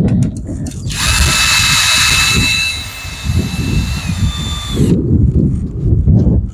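Cordless drill/driver fitted with a Torx bit, driving out a Torx screw from an old wooden chair: a steady whine that runs for about four seconds and stops suddenly. Low rustling and knocking of the work being handled around it.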